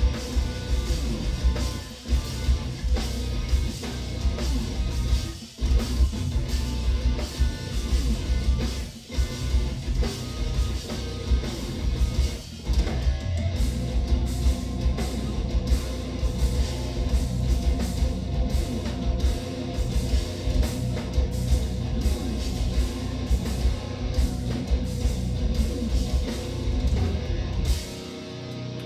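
Live instrumental progressive metal: distorted eight-string electric guitars and a drum kit with a pounding kick drum, with brief stops near 5 and 9 seconds in. The band cuts off about a second before the end, leaving a thinner ringing tail.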